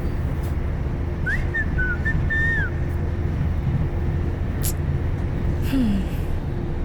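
Steady low rumble inside a moving train, with a short whistled phrase about a second in that lasts about a second and a half, rising, dipping, then falling away at the end.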